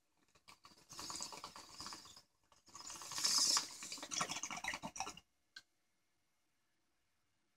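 Water bubbling in a glass bong as smoke is drawn through it, in two pulls, the second longer and louder.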